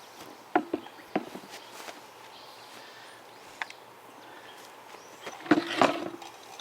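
Chainsaw parts being handled on the saw: a few scattered sharp clicks and knocks, then a cluster of louder knocks near the end.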